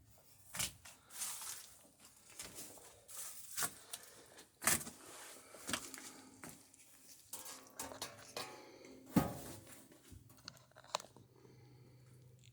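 Hand work on wooden boat planking: irregular scrapes, cracks and knocks of wood being cut and handled, with no steady sawing rhythm. A low steady hum starts about ten seconds in.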